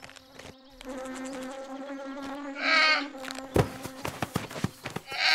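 Cartoon bees buzzing steadily around a beehive. The buzzing is broken twice by the bear cub's short, high, wavering cries, about three seconds in and again at the end, with a patter of light knocks between them.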